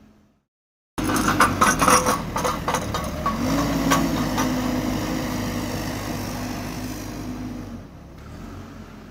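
Heavy construction machinery: after a second of silence it cuts in suddenly with a diesel engine running and a burst of metallic clanks and rattles, the engine pitch rising slightly about three seconds in, then running steadily before dropping in level near the end.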